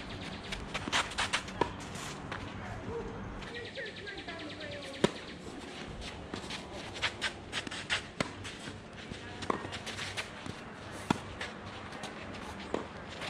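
Tennis ball knocks from racket strikes and bounces on the court, sharp single knocks at irregular intervals, the loudest about five seconds in, with footsteps and shoe scuffs between them.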